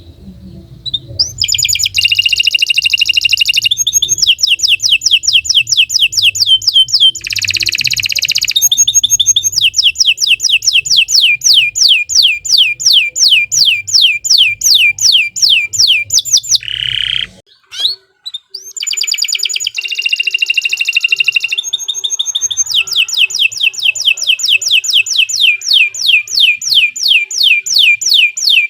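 Domestic canary singing a long, continuous song of rapid trills made of repeated falling notes, alternating with short buzzy rolls. There is a brief pause a little past the middle, after which the song starts again.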